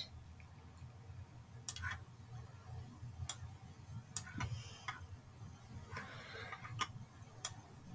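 Computer mouse clicking: about five short, sharp clicks at irregular intervals, over a faint low room hum.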